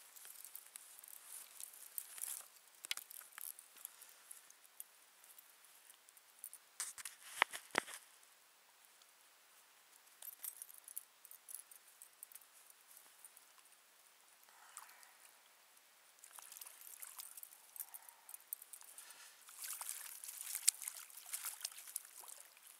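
Faint small water splashes and drips at the lake surface beside the boat, with a quick cluster of sharper ticks about seven seconds in and a denser patch of splashing near the end.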